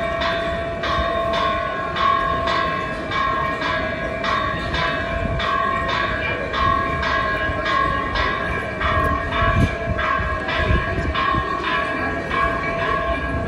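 Temple bell rung over and over, about two strokes a second, each stroke clanging and ringing on, with a steady hum beneath.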